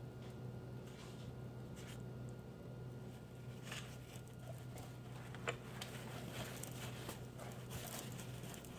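Faint kitchen handling sounds of plastic food containers and a spatula over a steady low hum, with a few light clicks and one sharper click a little past halfway.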